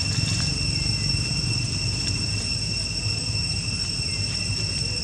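A steady high-pitched whine of several held tones over a constant low rumble.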